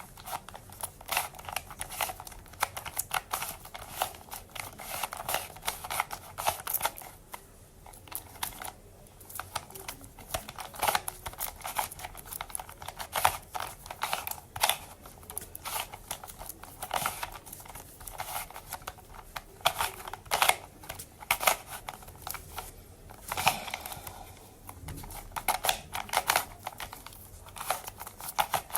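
Plastic Rubik's Cube being twisted by hand: runs of quick, irregular clicking and clacking as its layers turn, with short pauses between runs of moves.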